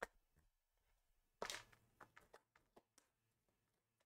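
Near silence, with a faint click at the start, a brief rustle of a tarot deck being handled about a second and a half in, and a few tiny ticks after it.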